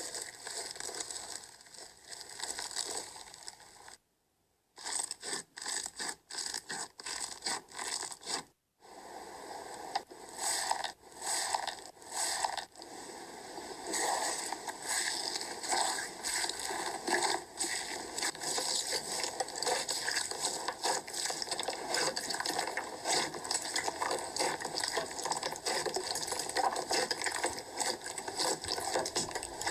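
Slime being squeezed and worked close to the microphone: a dense run of sticky crackles, clicks and scrapes. It drops out completely twice in the first nine seconds.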